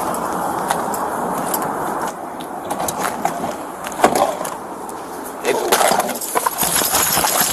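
Rustling and scraping with scattered sharp clicks, typical of a body-worn police camera's microphone rubbing against clothing and gear as the wearer moves. The clicks grow busier near the end.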